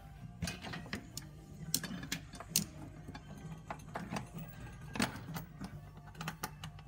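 Irregular metallic clicks and taps of crossmember bolts and hardware being fitted by hand under the car, over a steady low hum.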